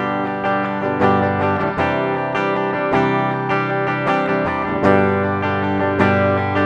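Yamaha Pacifica 112V electric guitar played through its bridge humbucker pickup: chords strummed over and over, each one ringing on into the next.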